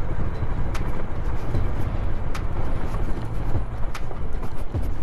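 Bajaj Dominar 400's single-cylinder engine running at low speed over a rough dirt track, heard as a dense low rumble mixed with wind on the helmet microphone. A sharp click comes roughly every second and a half.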